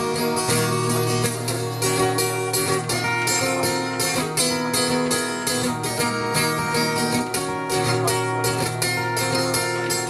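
Instrumental break in a live Cajun-style song: acoustic guitars strumming a steady rhythm with pitched notes held over it, no singing.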